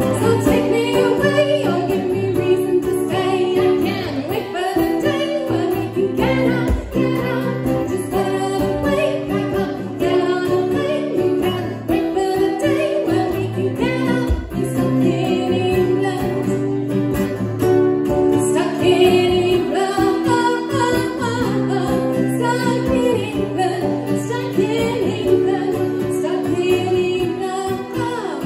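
Live acoustic song: a woman singing over a strummed acoustic guitar and ukulele.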